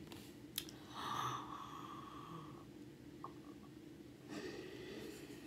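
Faint breathing and small mouth sounds from a woman close to the microphone, over a steady low hum. There is a short click about half a second in and a longer breathy hiss about a second in.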